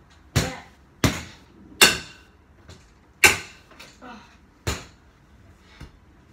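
A stick striking a freestanding punching bag on a spring pole: five sharp whacks at irregular intervals of about a second, with fainter knocks between them.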